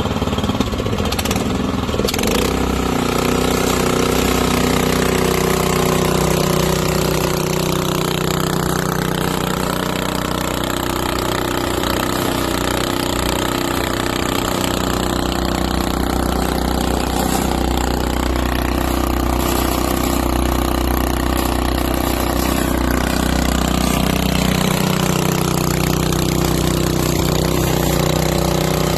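Honda single-cylinder gasoline engine on a cement mixer running steadily, turning the mixer's belt-drive pulley.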